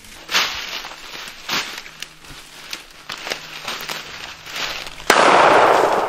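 A single shotgun shot at a quail about five seconds in, loud and then fading out over the next second or so. Before it come several shorter sharp crackles.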